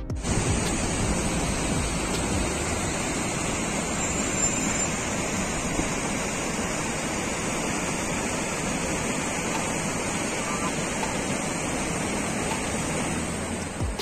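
A mountain stream rushing steadily through a narrow rocky gorge, falling water splashing over rocks.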